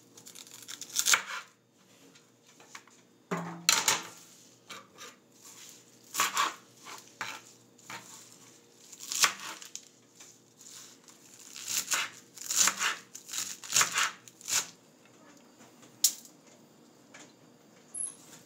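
Kitchen knife chopping fresh cilantro on a cutting board: irregular runs of sharp chops, with pauses between the runs.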